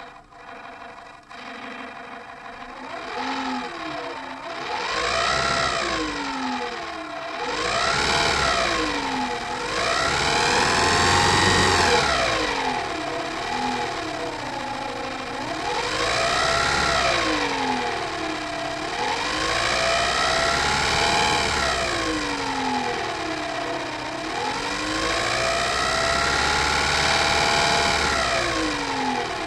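Homemade engine-sound imitator: a sirocco fan with thick cardboard attached, spun by hand with a finger or sponge, giving a buzzing, engine-like tone. The pitch rises and falls again and again every couple of seconds, like an engine being revved in neutral.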